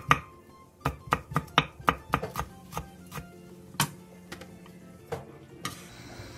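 Kitchen knife chopping a red chili pepper on an end-grain wooden cutting board: a quick run of knocks, about four a second, then a few scattered ones. Near the end there is a brief scrape as the chopped pepper is gathered onto the blade.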